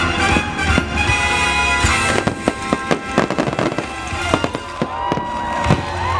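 Fireworks bursting and crackling over the show's music. The music holds notes for the first couple of seconds, then a rapid run of sharp bangs starts about two seconds in.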